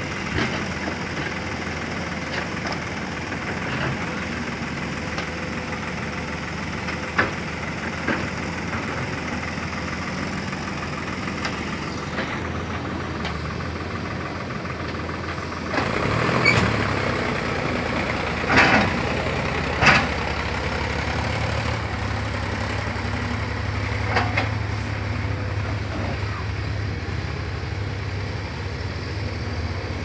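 Heavy diesel engines running steadily: a JCB backhoe loader working beside a tractor, then a crawler excavator digging. There are a few sharp clanks, most of them a little past halfway.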